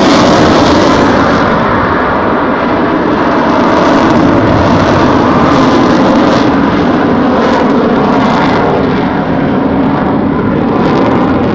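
Loud, steady engine noise of a military fast jet flying its display. The highest hiss fades after about a second and a half.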